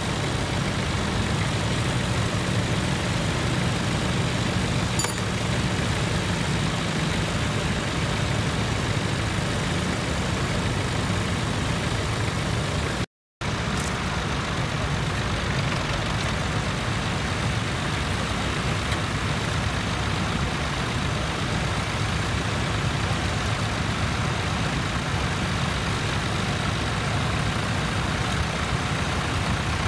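Tractor engines running steadily, with a short dropout to silence about 13 seconds in.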